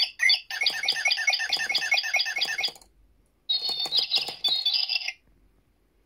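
Sound-activated toy birdcage's electronic bird call: tinny synthesized chirps repeated about five times a second for a couple of seconds, then, after a short pause, a second warbling chirp phrase that stops about a second before the end.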